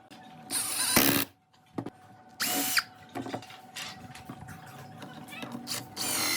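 A power drill run in three short bursts, each spinning up briefly and then stopping, with light clicks in the pauses between them.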